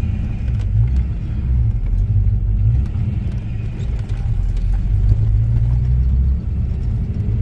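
Fox-body Ford Mustang's engine running under way, a steady low rumble heard inside the cabin, with small rises and dips in pitch and level as the car drives on.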